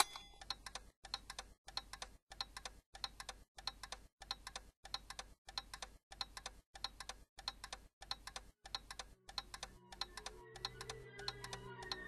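A clock ticking evenly, about two ticks a second. Low, held music notes come in underneath about ten seconds in.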